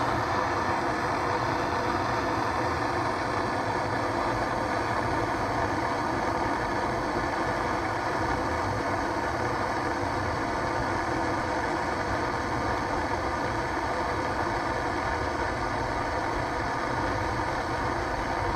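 Gas burner running with a steady roar while it lights the stove.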